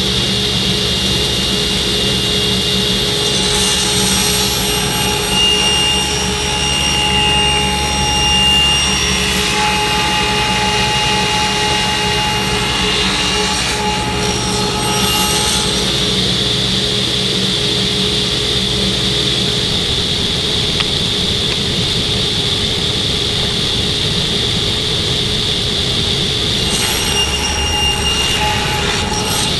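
Table saw running steadily, its sound shifting a few times as a walnut workpiece held in a sled fixture is fed through the blade.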